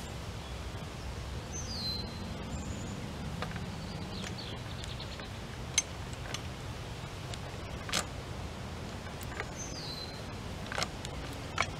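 Sharp metal clicks from a high-lift farm jack as its handle is pumped to pull a fence post with a chain, four or so in the second half. A bird calls twice with a short falling whistle over a steady low background noise.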